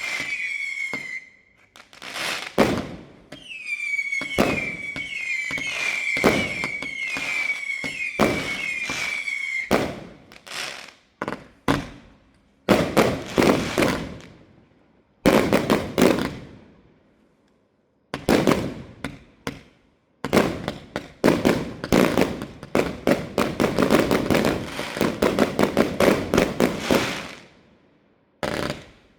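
Fireworks display: for the first ten seconds a run of high whistles, each dropping slightly in pitch, over repeated bangs; then sharp bangs and rapid crackling volleys, densest in a long barrage about two-thirds of the way through.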